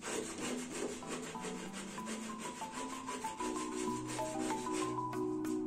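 Sandpaper rubbed by hand over a plaster of Paris bas-relief in quick back-and-forth strokes, several a second, smoothing the plaster. Under it, a soft melody of held mallet-like notes plays.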